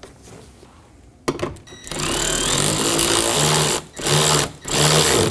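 Cordless power driver running a 10mm bolt into a car door panel: one long run of about two seconds, then two short bursts as the bolt is snugged down.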